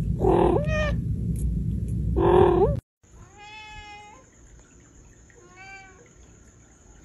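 Domestic cats meowing: two loud, rising-and-falling meows in the first three seconds over a low background rumble, then after a sudden break a second, quieter cat gives one longer meow and, about two seconds later, a short one.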